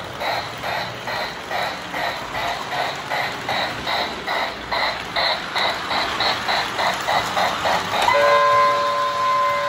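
Model steam locomotive's electronic sound unit (Lionel MPC-era Union Pacific Berkshire, Mighty Sound of Steam) chuffing in an even rhythm of about three chuffs a second. About eight seconds in, its whistle blows one long steady note.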